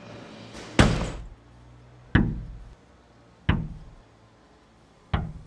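Four heavy impact hits, evenly spaced about a second and a half apart. Each hits hard and trails off with a low, fading rumble over about half a second.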